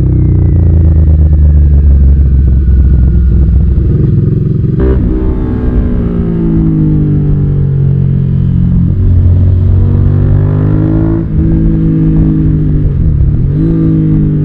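Suzuki SV650's V-twin engine running under way, its pitch rising and falling through gear changes. There are sharp breaks in pitch about five and eleven seconds in, and a quick dip and rise near the end.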